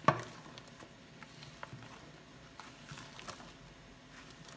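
Metal spoon stirring thick ice cream with frozen cream chunks in a plastic tub. One sharp knock of the spoon against the tub right at the start, then scattered light taps and scrapes.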